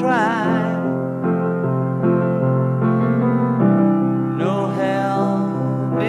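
Background music: a slow song with piano accompaniment, a voice singing wavering held notes at the start and again about four and a half seconds in.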